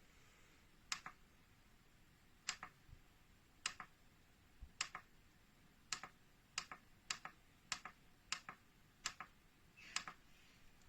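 A series of faint, sharp double clicks, each a click followed closely by a softer one, coming irregularly about once a second and a little faster in the middle.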